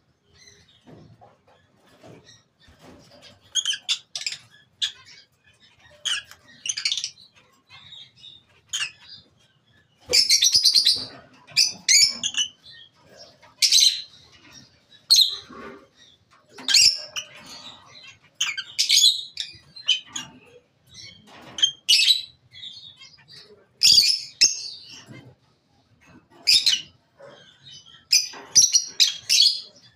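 Lutino peach-faced lovebirds chirping and screeching in short, high-pitched bursts; sparse and quieter at first, then louder and more frequent from about ten seconds in.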